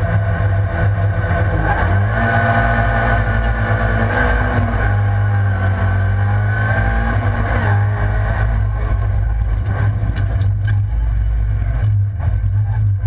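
Rallycross car's engine running hard, heard from inside the stripped cockpit, its note rising and falling with throttle and gear changes. Near the end comes a run of sharp clicks as stones from the loose surface hit the car.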